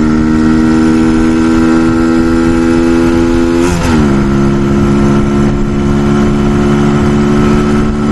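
Brixton Felsberg 125's single-cylinder engine pulling under load while riding uphill, with wind rush on the microphone. The revs drop sharply once, about three and a half seconds in, then run steady at the lower pitch.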